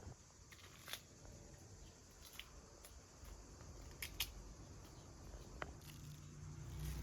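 Faint, scattered clicks and rustling handling noises, a few short sharp ticks spread across several seconds, with a low rumble creeping in near the end.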